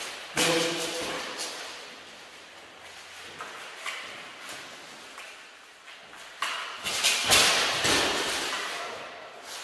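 Steel mail and plate armour clanking and rattling as two armoured fencers close and grapple, with sharp knocks echoing in a large hall. It comes in two bursts, just after the start and again from about six and a half seconds in, with lighter knocks between.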